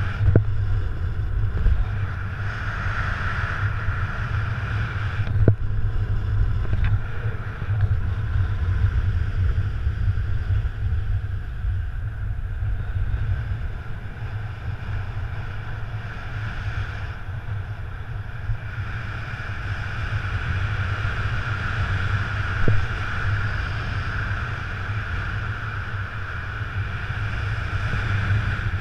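Wind rushing over the camera microphone of a paraglider in flight: a steady low buffeting rumble with a hiss. A couple of brief knocks come through, one about five seconds in and one later on.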